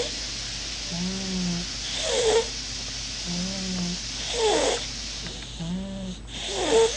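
A baby snoring in a regular rhythm, a breath about every two and a half seconds. Each cycle has a short, low, humming snore followed by a breathy, squeaky, whistling breath, three times over.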